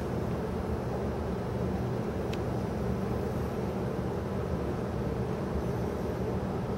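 Steady low rumbling background noise, like machinery or ventilation hum, with one faint click about two seconds in.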